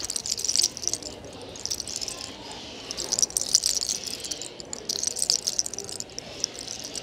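Fingers rolling, rubbing and tugging locks of hair close to the microphone in a hair-cracking (sacar los soles) scalp massage. Crisp crackling and tiny pops come in bursts about every second or so.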